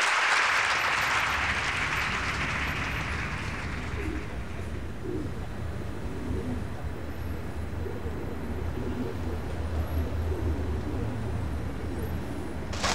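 Applause dying away over the first few seconds, then a steady low city rumble with a pigeon cooing again and again.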